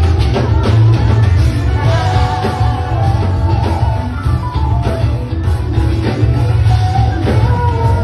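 A live band playing a rock-style song with a singer, amplified, with heavy bass and drums.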